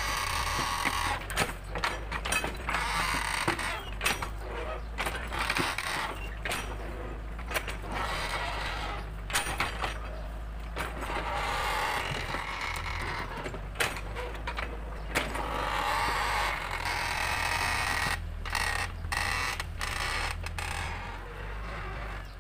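Mini excavator digging, its diesel engine running steadily under frequent sharp clanks and creaks as the bucket works the soil.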